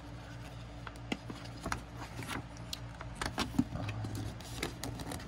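A large folded paper poster being unfolded by hand, the glossy paper crinkling and rustling in irregular crackles, over a faint steady low hum.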